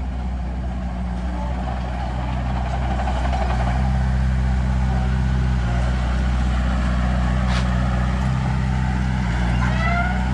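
Heavy diesel engine of construction machinery running steadily, getting a little louder about three and a half seconds in.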